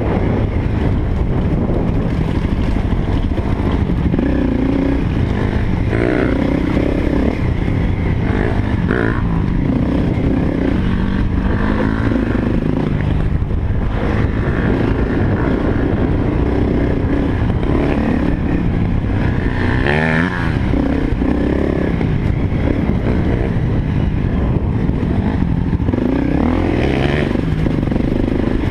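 Honda CRF250L dirt bike's single-cylinder four-stroke engine running under load on a trail ride, its revs rising and falling with the throttle.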